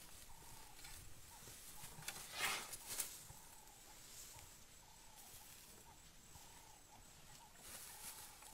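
Quiet bush ambience with a faint call repeated about twice a second, broken a couple of seconds in by a short noisy burst and a click from the baby African elephant calf moving in dry grass.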